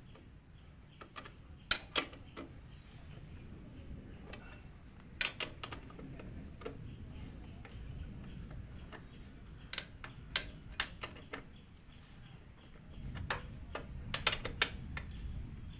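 Steel ring spanners clinking on a motorcycle's rear axle nut as it is tightened: sharp, irregular metallic clicks, a few at a time, with a small cluster near the end.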